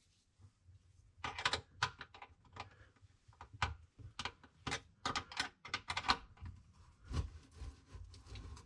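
Irregular clicks, knocks and clatter of hands and tools working on the under-sink garbage disposal's mounting hardware as the old unit is taken out, with a few duller thuds near the end.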